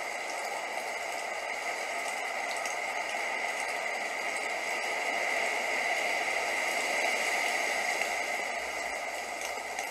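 Steady rain, an even hiss of rainfall that swells slightly a little past halfway.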